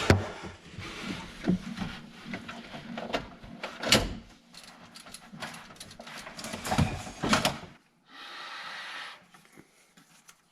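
Irregular knocks, clicks and scraping as a new reverse cable is pushed and pulled through a hole in a 2003 Sea-Doo Sportster's hull, with a few louder knocks. Near the end comes a short steady hiss, then it goes almost quiet.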